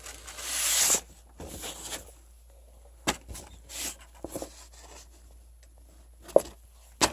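Packaging being handled while a parts kit is unpacked: a swish of paper or plastic sliding in the first second, then scattered rustles and light taps, with a couple of sharp clicks near the end.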